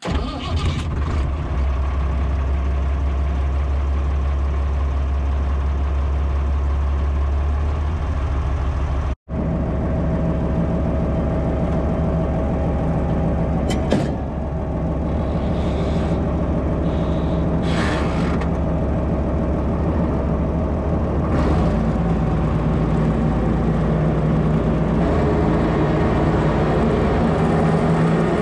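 County tractor's diesel engine running steadily under the driver's seat, with a low, even drone. It cuts out for an instant about nine seconds in, and a couple of brief rattles come over it around the middle.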